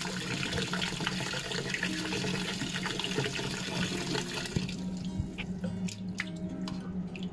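Tap water running into a sink as blanched chicken bones are rinsed. The water shuts off about four and a half seconds in, followed by a few light clinks and knocks, with a steady low hum underneath.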